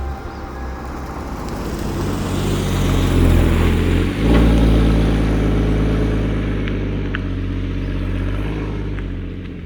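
Porsche 981 Boxster GTS's 3.4-litre flat-six engine and exhaust pulling hard under acceleration, with a brief break for an upshift about four seconds in. It then carries on in the next gear, easing off and getting gradually quieter.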